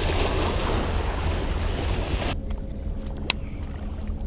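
Wind rumbling on the microphone, with a hiss that cuts off suddenly a little past halfway, then a single sharp click.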